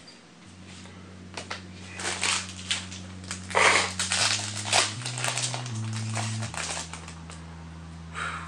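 Trading cards being handled and laid down on a play mat: a run of papery rustles, flicks and slaps, thickest in the middle. Under them, low steady tones shift in pitch a few times.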